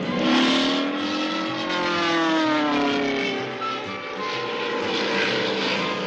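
Cartoon sound effects: a short noisy crash about half a second in, then a long pitched tone that rises a little and then slides slowly down.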